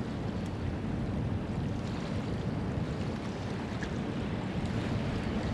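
Wind buffeting the microphone: a steady, gusting low rumble.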